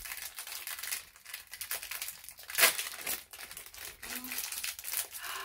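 Small plastic accessory bag crinkling and crackling as it is handled and torn open by hand, with one sharper, louder crackle about two and a half seconds in.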